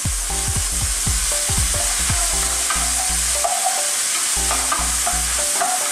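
Chopped pork sizzling in hot oil with garlic, onion and tomato in a nonstick sauté pan, stirred and scraped around with a spoon. The frying hiss is steady, with a few soft knocks of the spoon against the pan in the first two seconds.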